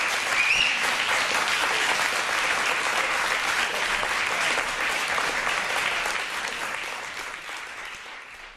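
Theatre audience applauding a curtain call. The applause is steady, then fades away near the end.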